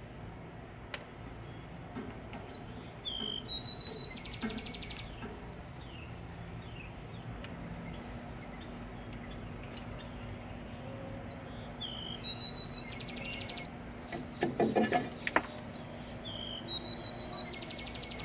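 A songbird sings the same short high phrase ending in a fast trill three times. Around two-thirds of the way through comes a brief clatter of metal knocks as the tractor's exhaust manifold is worked loose by hand.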